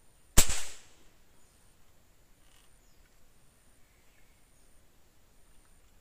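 A single sharp gunshot about half a second in, dying away within half a second.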